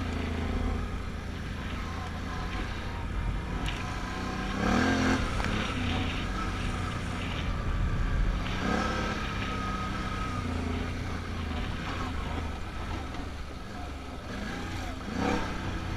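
Can-Am Outlander ATV engine running under way, its revs climbing and dropping a few times, about five, nine and fifteen seconds in, as the throttle is worked.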